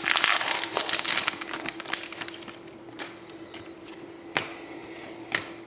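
Foil wrapper of a hockey card pack crinkling as it is torn open, fading out after a second or two. Then a few sharp ticks of the cards being handled, over a faint steady hum.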